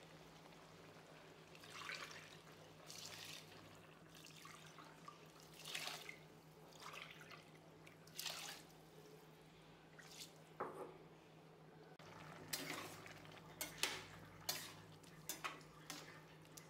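Water poured cupful by cupful into a steel pressure cooker of rice, quiet separate splashes a second or more apart, followed later by the clicks and scrapes of a steel ladle against the pot as the rice is stirred. A faint steady hum runs underneath.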